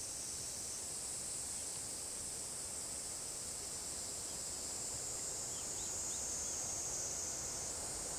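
Steady high-pitched insect chorus, with a few brief high chirps about five and a half seconds in.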